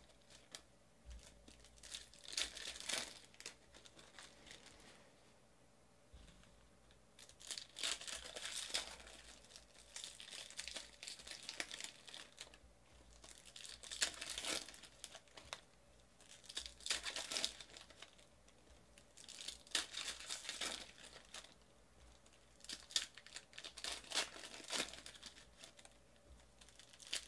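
Panini Prizm basketball card pack wrappers being torn open and crumpled by hand, in bursts of crinkling a second or two long every few seconds with short quiet gaps between.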